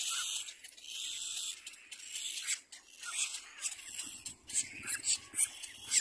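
Cormorant chicks giving hissing, rasping begging calls at the nest, in a run of noisy bursts that come sharper and louder in the second half.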